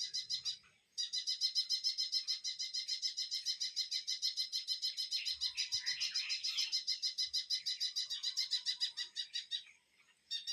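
A bird calling in a rapid, even run of high chirps, about eight a second, breaking off twice for a moment. Other softer bird calls come in around the middle.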